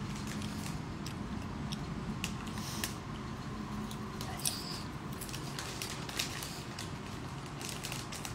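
Someone eating popcorn, with scattered small crunches and clicks of chewing and handling the snack over a low steady hum.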